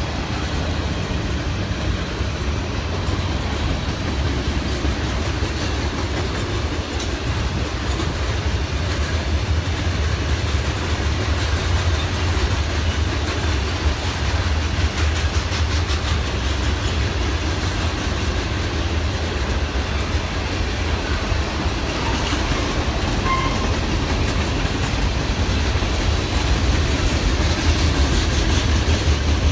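A train rolling steadily past, its cars rumbling and the wheels clicking over the rail joints.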